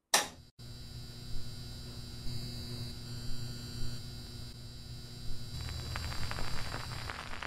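A click as the console record player is switched on, then its amplifier hums steadily with a hiss. About five and a half seconds in, the stylus settles into the groove and a dense vinyl crackle of small pops joins the hum.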